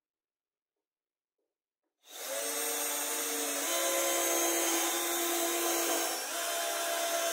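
Electric drill starting about two seconds in and running steadily as it bores into plywood, its motor pitch shifting a couple of times as the bit works through the wood.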